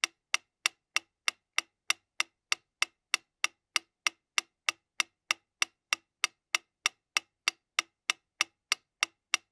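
Wind-up mechanical metronome ticking at a fast, steady tempo, about three evenly spaced clicks a second, all of equal strength.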